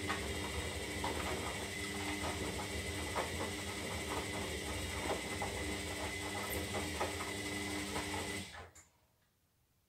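Zanussi Lindo 300 washing machine's motor turning the drum in the wash phase: a steady motor hum and whine with irregular knocks and sloshing from the tumbling load, stopping suddenly about eight and a half seconds in as the drum pauses.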